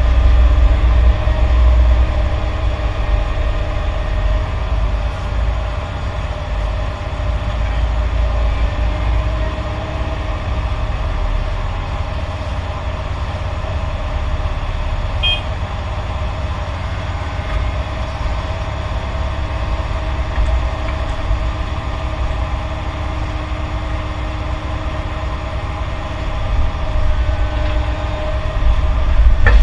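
Heavy diesel earthmoving machinery running steadily: a deep rumble with a steady hum over it, a little louder near the start and again near the end.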